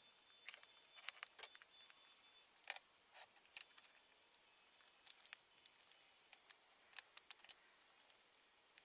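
Near silence, broken by faint, sharp clicks and taps scattered through, some in quick pairs and clusters.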